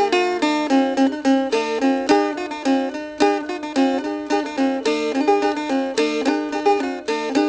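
Instrumental music on a plucked string instrument, a quick, steady run of bright separate notes with no bass or drums.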